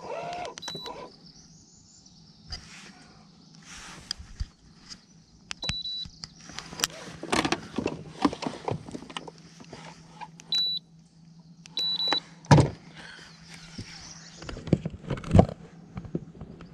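Knocks and clicks of gear being handled in a fishing boat, broken by four short, high electronic beeps. A steady low hum sets in about five seconds in.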